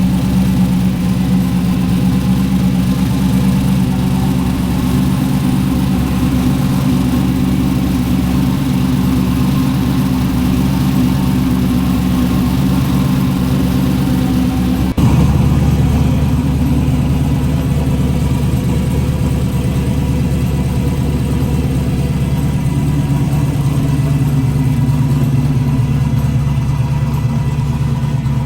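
Turbocharged 5.3 L LS V8 idling steadily. About halfway through the sound changes abruptly to a slightly different, deeper idle.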